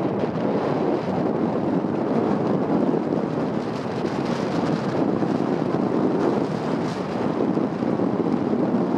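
Steady wind rush over the microphone from a moving moped, mixed with its road and engine noise.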